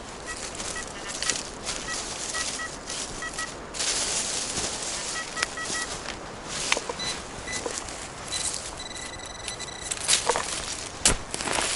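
Footsteps crackling through forest leaf litter while a metal detector gives short, high electronic beeps, several in a row in the first few seconds. A noisy rustling stretch follows, with sharp snaps and clicks near the end.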